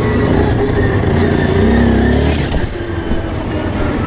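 Quad bike engine running while being ridden; it revs up about two seconds in, then eases off.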